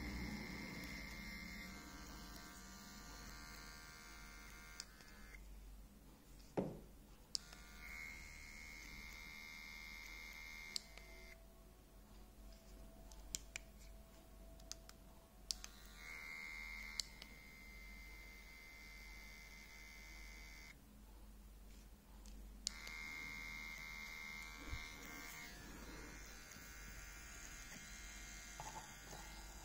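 Small electric motor of an Andoer battery-powered camera dolly whirring with a steady high whine. It runs in four stretches of a few seconds, stopping in between, with sharp clicks of handling in the gaps.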